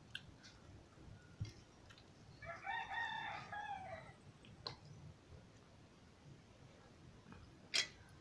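A rooster crowing once, a single call of about a second and a half starting a little past two seconds in. A few faint clicks, and one sharp knock near the end.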